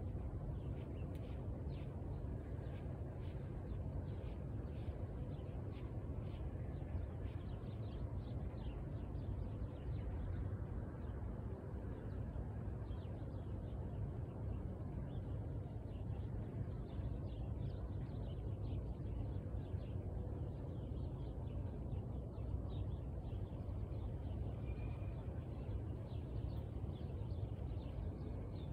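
Outdoor ambience: a steady low rumble with faint, short high chirps scattered through it.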